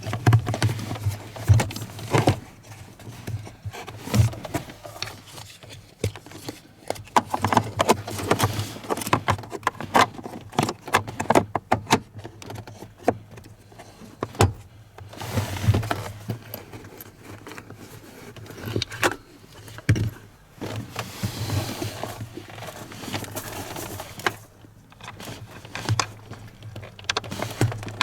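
Irregular clicks, taps and rustling scrapes of hands handling parts while changing a Volvo V50's cabin air filter.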